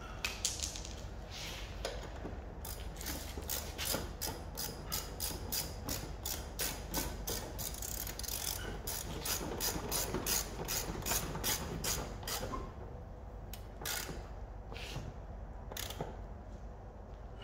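Hand ratchet and socket clicking as it turns the nut on the rear shock absorber's upper mount, a steady run of about three or four clicks a second. Near the end it slows to a few separate clicks.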